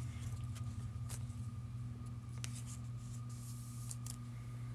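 Quiet room tone: a steady low electrical hum with a few faint clicks and light scratchy rustles.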